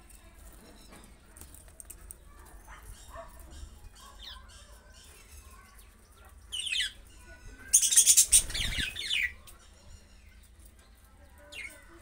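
Budgerigars chattering with soft chirps, a louder chirp about six and a half seconds in, then a loud burst of harsh squawking and wing flapping about eight seconds in.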